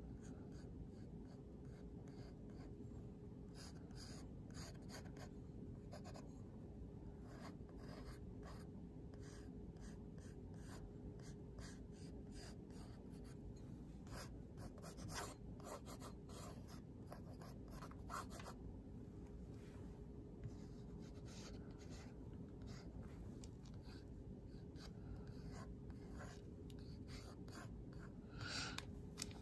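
Short scratchy strokes of an artist's tool on paper, coming in irregular clusters, over a faint steady hum.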